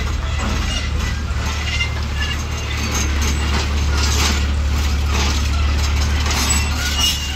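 Dump truck engine running steadily at low revs while the truck and its trailer are moved, with metallic clanks and rattles, the busiest stretch about halfway through.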